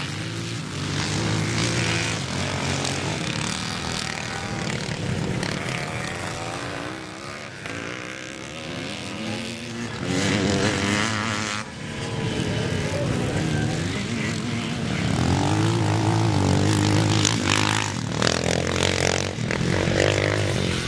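Vintage motocross motorcycle engines revving hard as the bikes race past, the pitch rising and falling over and over as the riders open and close the throttle. The sound grows louder about ten seconds in and again through the second half.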